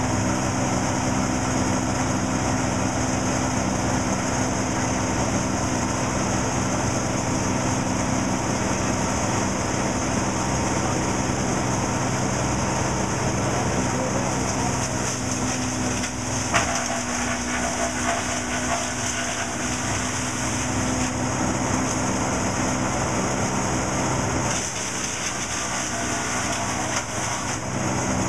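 Timberwolf S426 Turbo Shredder wood chipper's diesel engine running steadily. From about halfway branches are being fed in and chipped, adding a rough, uneven clatter over the engine, with one sharp crack a little after that.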